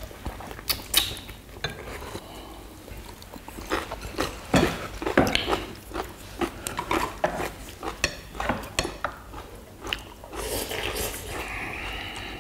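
Chopsticks and a metal ladle clinking and scraping against a pot and dishes at a meal: irregular clicks and taps, a few louder ones about five seconds in.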